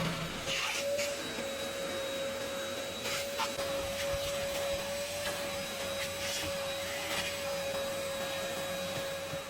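A small electric motor, such as a power tool or vacuum, running steadily at constant speed with a high whine that holds the same pitch throughout.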